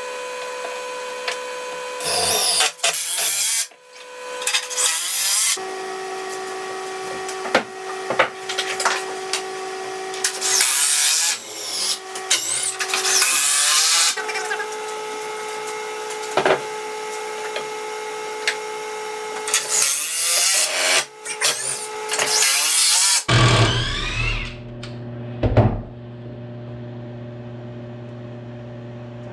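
Cordless drill driving screws into wooden 2x4 floor joists in repeated bursts of a second or two, its motor whining up and down, over steady background tones. About 23 seconds in it gives way to a steady low hum with a couple of sharp clicks.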